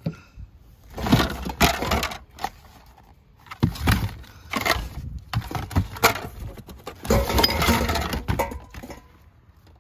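Hand rummaging through a cardboard box of plastic Halloween decorations and packaged items, the pieces clattering and rustling against each other and the box in three bursts of a second or two each.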